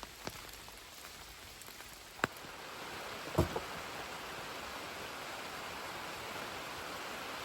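Rain falling: scattered drops ticking on a surface, thickening about three seconds in to a steady hiss of rain, with one dull knock near the middle.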